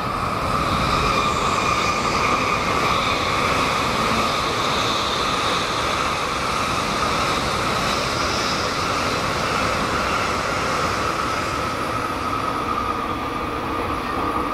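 Tokaido Shinkansen bullet train passing at moderate speed: a steady rush of wheels on rail with a high, steady whine, easing slightly near the end.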